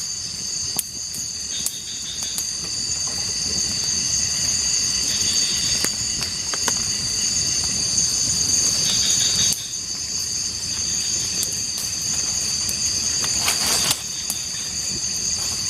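Night chorus of forest insects: a steady, high-pitched, two-toned drone, with scattered light clicks over a low background rumble.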